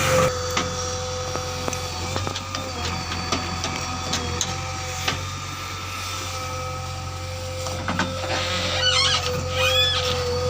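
JCB 3DX backhoe loader's diesel engine running steadily with a held whine, with a few short knocks scattered through. Quick chirping calls come in briefly about nine seconds in.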